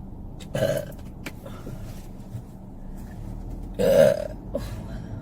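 A woman belching twice: a short burp about half a second in, then a louder one about four seconds in.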